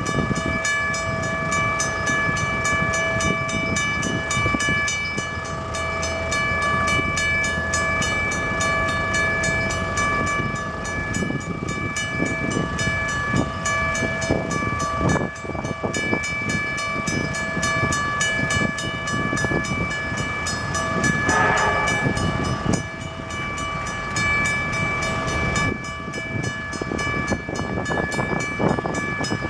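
Railway level crossing warning bell ringing continuously, a steady ring at several pitches, over a low uneven rumble.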